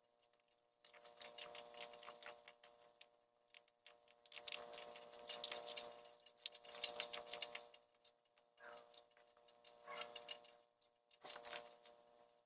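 An opossum and a skunk scuffling on a wooden porch with loose straw: faint rustling and scratching full of quick clicks, in four bouts separated by short pauses.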